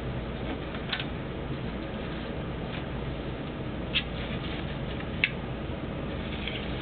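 A few light clicks and taps, three of them sharper, about a second in, near four seconds and a little after five, over a steady low background hum; no power tool is running.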